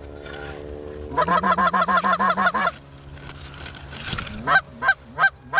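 Geese calling close by: a fast run of clucking honks about a second in, then single honks about three a second near the end.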